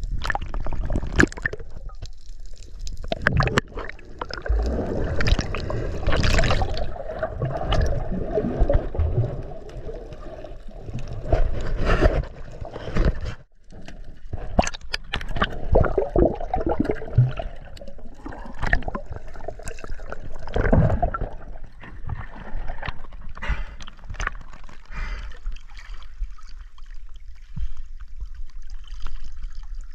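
Water gurgling and sloshing around the camera, broken by frequent short knocks and splashes.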